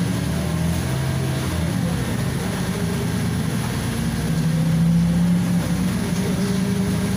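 Inside a Volgabus 5270G2 city bus under way: its Yuchai YC6L280N natural-gas engine running, driving through a Voith automatic gearbox, with road noise. The engine note steps in pitch a few times and is loudest about five seconds in.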